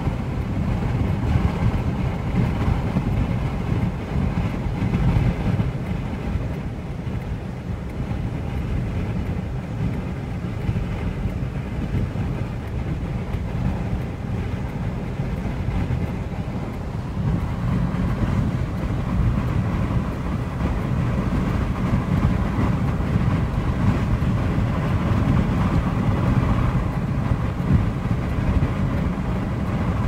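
Steady low rumble of a car driving on the highway, heard from inside the cabin, mixed with noise from strong wind.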